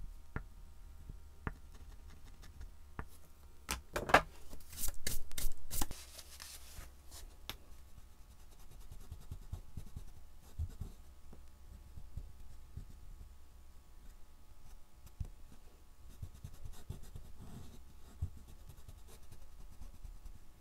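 A soft oil pastel stick scratching across a black-painted MDF board, with a louder stretch of quick strokes about four to six seconds in, then fingertips rubbing over the board to blend the pastel.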